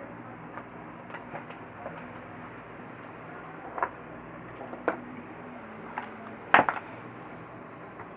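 Sharp clicks and knocks of small hard objects being handled and set down on a work surface, a few scattered through, the loudest a double knock about six and a half seconds in, over a steady low hum.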